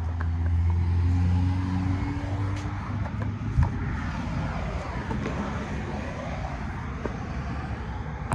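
A car driving past: a low engine hum, loudest in the first two seconds, fading into the rush of tyres on the road. A single short knock sounds about three and a half seconds in.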